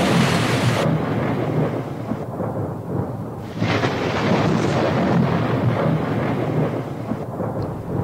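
Thunderstorm: steady rain hiss with low rumbling thunder. The hiss thins out abruptly about a second in and comes back about halfway through, while the rumble goes on.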